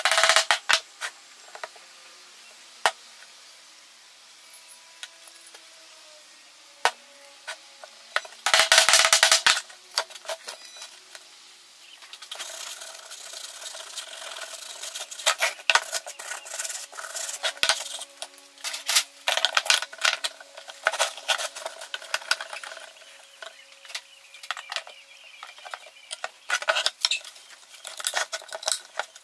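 Hand work on rough pallet-wood boards: a hammer strikes a wooden dowel at the start, with a loud rough burst about nine seconds in. From about twelve seconds a cloth rubs and scrubs over the boards, with scattered clicks and knocks as clamps are fitted near the end.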